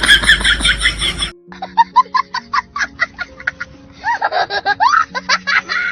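Meme sound effects in a cartoon short. First comes about a second of rapid, high-pitched cartoon giggling, which cuts off abruptly. Then a meme music clip follows: steady low notes under quick squeaky chirps and sliding, squeaky voice-like sounds.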